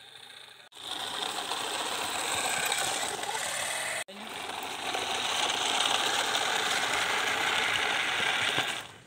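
Small battery-powered DC motor of a homemade cardboard toy truck whirring steadily. It starts almost a second in, drops out for an instant about four seconds in, and stops just before the end.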